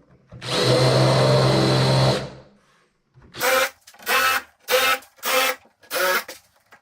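Drill running with a countersink bit into thin plywood, one steady run of about two seconds. Then a quick series of five short drill bursts, about one every half second to second, as hole after hole is countersunk.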